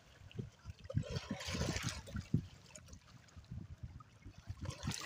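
Shallow river water lapping and trickling among rocks and floating stems at the shoreline, with irregular low rumbles and a brief splashy hiss about a second or two in.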